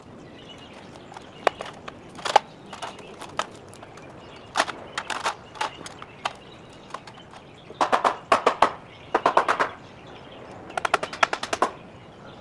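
Cordless impact driver driving screws into treated-lumber framing in short, fast rattling bursts, with a few single sharp knocks before the bursts.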